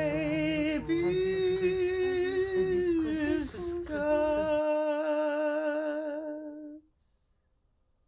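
A woman humming long, held notes, with a short hiss about three and a half seconds in; the last note fades out about seven seconds in.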